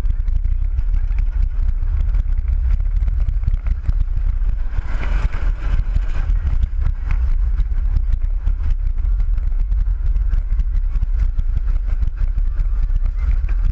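The Scorpion steel looping roller coaster running at speed, heard from on board: wind buffeting the microphone with a heavy low rumble, and a dense rattle of the train on the track. A louder rush swells briefly about five seconds in.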